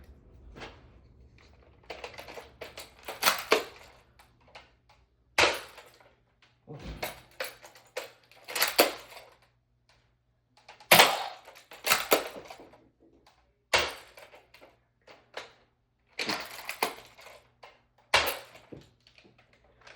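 Toy foam-dart blasters being primed and fired, an irregular series of sharp plastic clacks and thumps, some in quick pairs, with darts striking and landing.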